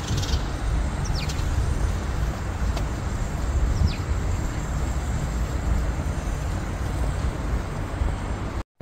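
Birds chirping over a steady low rumble: a few short, falling calls about a second in and again around four seconds.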